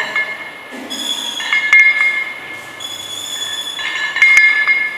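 Iron weight plates on a barbell clinking, with a high metallic squeal, in two bouts as the bar is curled up and lowered; a few sharp clinks stand out.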